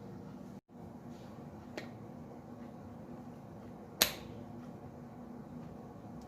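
A faint tick, then one sharp click about four seconds in, over a steady low hum.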